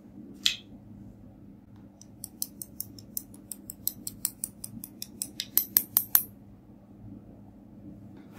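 A small glass vial of glitter being tapped with a thin stick to shake the glitter out: a run of sharp light ticks, about six a second, growing louder, then stopping. A single short click comes about half a second in.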